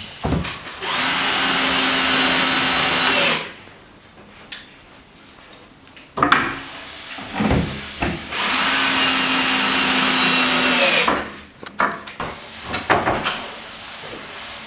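Power drill running steadily twice, each run about two and a half seconds long, as the ceiling rack is fixed up, with knocks and clicks of handling between the runs.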